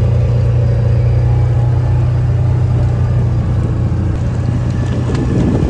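Side-by-side utility vehicle's engine running steadily under way, heard from the seat as a loud, even low drone.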